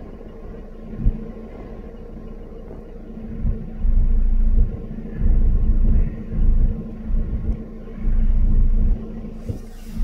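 A car engine idling with a steady hum, overlaid by repeated heavy low rumbles on the microphone, mostly from about four to nine seconds in.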